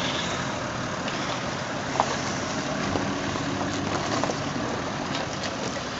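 Toyota Land Cruiser 79-series ute's engine running steadily at low revs as it crawls over a rocky four-wheel-drive track, with a few light knocks.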